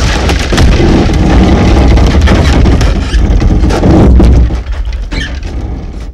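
Loud end-screen soundtrack with a deep, steady bass rumble and dense crackling, dipping in level about four and a half seconds in.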